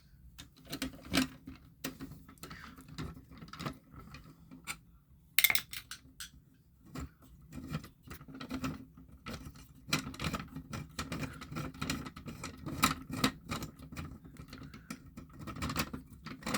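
Screwdriver unscrewing a mounting screw from a fire-alarm pull station: irregular small clicks and metal ticks, with a louder knock about five seconds in and a short pause soon after.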